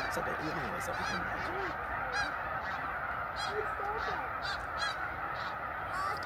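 A huge flock of snow geese calling all at once: a dense, unbroken din of overlapping honks with no pauses.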